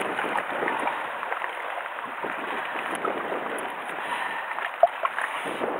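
Steady wash of the sea on a rocky shore, with small clicks of scissors working into a fish and one short squeak about five seconds in.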